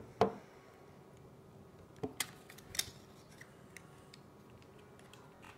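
Handling of a plastic model kit and its cardboard box on a wooden table: a loud knock just after the start, then a few lighter clicks and taps around two to three seconds in.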